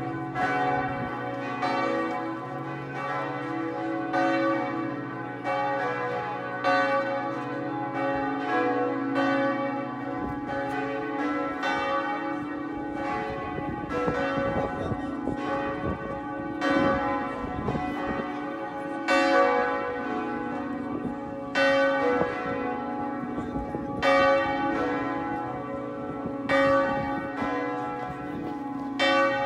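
Swinging church tower bells, a partial peal of three bells, ringing with overlapping strikes and a long hum between them as the peal is rung out.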